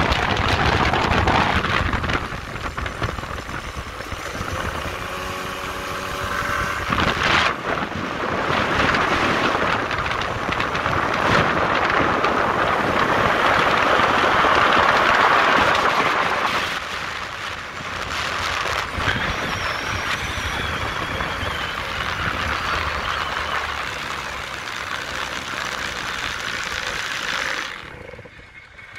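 Gilera Runner scooter, its 125cc engine fitted with a 180cc cylinder, running at speed under heavy wind noise on the microphone. The engine pitch rises in places as it accelerates, and the sound drops away near the end.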